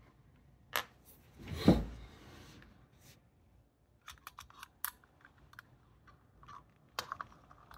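Batteries handled on a stone countertop: a dull thump about one and a half seconds in, the loudest sound, then a quick run of light clicks and taps as a battery is pressed against the contacts of a small plastic battery tester.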